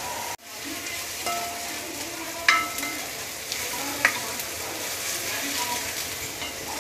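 Chopped onions frying in hot oil in a stainless-steel kadai, sizzling steadily as a spatula stirs them. The spatula knocks sharply against the pan twice, and the sound briefly cuts out near the start.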